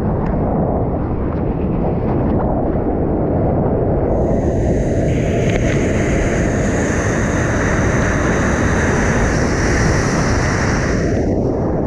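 Rushing water and wind buffeting a surfboard-mounted action camera as the board rides a breaking wave. A bright hiss of whitewater spray joins about four seconds in and drops away near the end.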